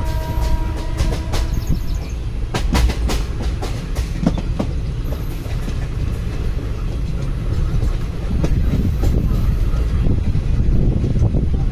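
Indian Railways passenger coach running along the track, heard from its open door: a steady deep rumble with wheels clacking over rail joints, in a quick cluster of sharp clacks about three seconds in. The tail of a train horn dies away in the first second.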